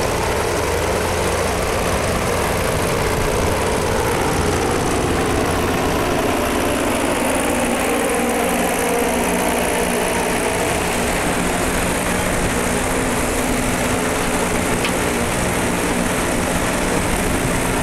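Goodyear blimp's propeller engines idling, a steady engine drone with an even hum that holds unchanged throughout.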